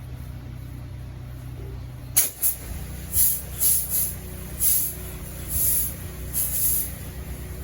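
DeWalt 3.5 GPM pressure washer's engine running steadily. About two seconds in, its note changes as the spray gun is triggered, and a series of short hissing bursts of spray follows: the soap tip putting bleach-and-surfactant mix onto the house.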